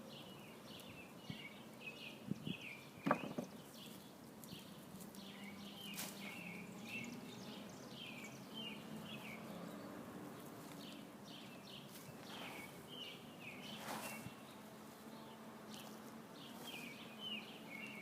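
Birds chirping in quick runs of short notes, with a few soft knocks in between, the loudest about three seconds in.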